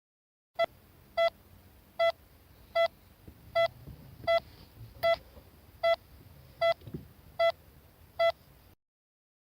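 Hospital heart monitor (ECG) beeping in time with a heartbeat: eleven short high beeps at a steady pace of about one every three-quarters of a second, over a faint hiss. The beeps start about half a second in and stop shortly before the end.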